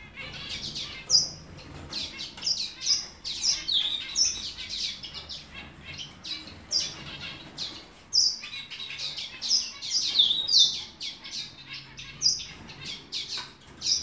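Caged birds chirping: many short, high calls one after another, thinning briefly just past halfway.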